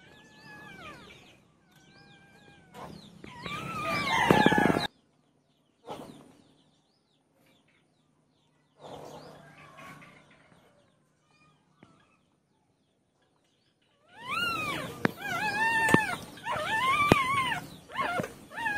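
Newborn puppies whining and squealing in high, arching cries. They come in two bouts: the first for several seconds, cutting off abruptly, and another near the end.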